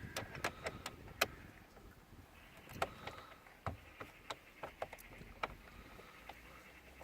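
Scattered sharp clicks and taps, irregularly spaced, from a screwdriver being turned to tighten a screw in a car's plastic dashboard.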